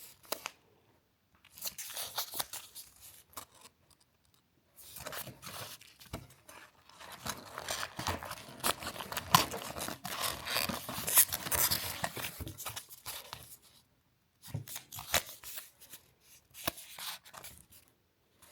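Cardboard advent calendar door being torn open and the small gift inside unwrapped: paper tearing and packaging crinkling in irregular bursts, busiest in the middle, with scattered handling clicks near the end.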